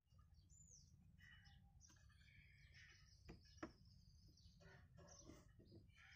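Faint birds chirping, with short high calls and a falling whistle near the start, over a low steady rumble; two sharp clicks come close together about three and a half seconds in.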